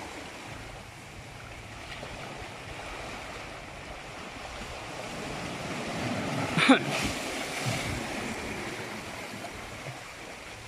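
Steady wash of water and wind. About two-thirds of the way in comes one brief sharp sound, the loudest moment.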